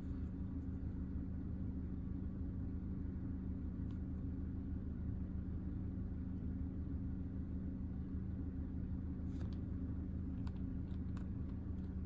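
Steady low hum inside a parked car's cabin, with a constant low tone under it. A few faint clicks come about nine to eleven seconds in.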